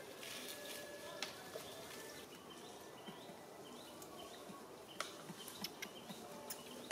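Faint outdoor ambience with a run of short, high chirping calls, about two a second, through the middle, and a few sharp clicks.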